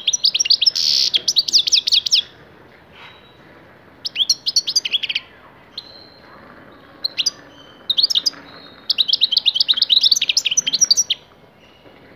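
Six-month-old European goldfinch singing: fast, high twittering and trilling phrases in several bursts with short pauses, the longest runs at the start and again from about nine to eleven seconds in.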